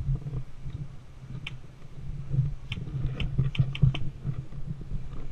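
Sharp clicks from airsoft play: a scattered few, then a quick run of about five within a second past the middle, over a steady low rumble.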